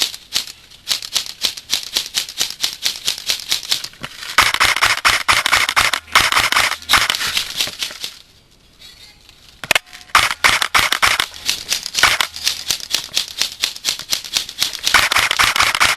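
Airsoft guns firing: rapid strings of sharp clicking shots in several bursts, with a short lull about halfway through.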